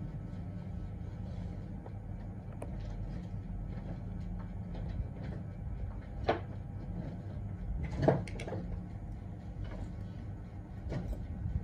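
Metal dental pick scraping and picking debris off teeth, with scattered small clicks and two sharper clicks about six and eight seconds in, over a low steady hum.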